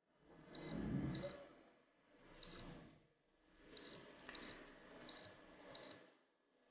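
Lowrance Elite-5 HDI fishfinder's keypad beeping as its buttons are pressed: seven short, high beeps at irregular intervals, each with a soft click of the key under the thumb.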